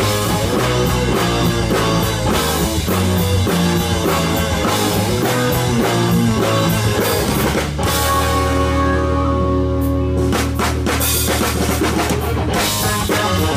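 Live rock band (electric guitars, bass, drum kit and keyboard) playing an instrumental passage. About eight seconds in the drumming drops away and a low chord is held, then the full band comes back in near the end.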